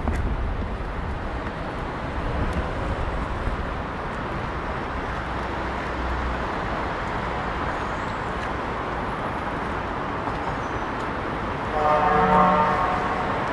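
City street ambience: a steady wash of traffic noise with a low rumble through the first half. Near the end comes a short pitched tone lasting about a second, the loudest thing heard, like a vehicle horn toot.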